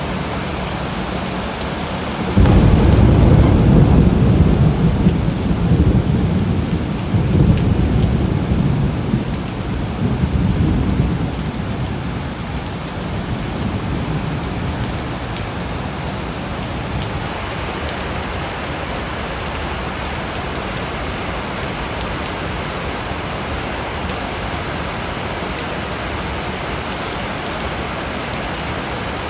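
Steady heavy rain with a roll of thunder that breaks in suddenly about two seconds in, rumbles loudly for around nine seconds in uneven surges, then dies away, leaving the rain alone.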